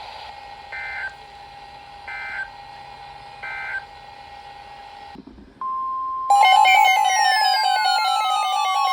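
Emergency Alert System end-of-message code: three short two-pitch data bursts about a second and a half apart, over a faint steady tone. A little past halfway a steady alert tone near 1 kHz starts, and loud layered electronic tones with falling sweeps come in on top of it.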